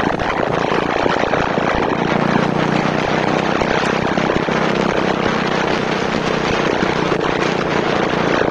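Motorcycle engine droning at a steady cruising speed, mixed with heavy wind rush on the microphone.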